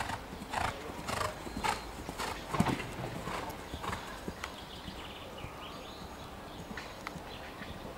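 Holsteiner mare cantering on a grass show-jumping course: hoofbeats in a steady rhythm of about two strides a second, with one heavy thud a little before the middle. The strokes grow fainter in the second half as the horse moves away.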